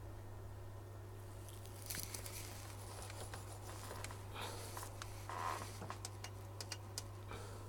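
Faint, irregular small clicks and scratches of hand tools working on a phone circuit board during soldering, over a steady low electrical hum.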